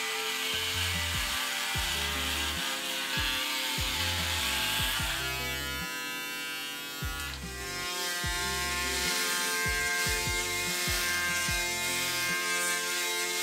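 Background music with held chords, over the buzz of an electric shaver running across a shaved scalp.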